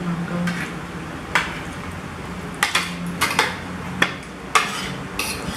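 Forks and spoons clinking and scraping against ceramic plates while people eat, with a scatter of short sharp clinks, several close together in the middle of the stretch.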